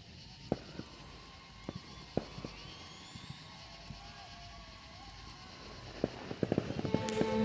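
Scattered sharp pops of distant fireworks, a few seconds apart, then a quick string of pops near the end as music starts.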